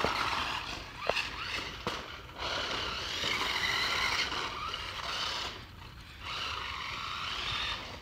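Small electric motor of a toy remote-control car whirring as it drives, its wheels scraping on the ground, in two long runs with a brief drop about six seconds in.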